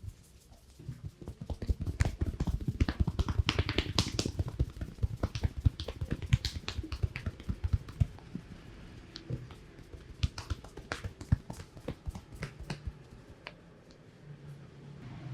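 A barber's hands at work in a head massage: quick sharp slaps and taps on the head, dense for about seven seconds, then thinning out and stopping a couple of seconds before the end.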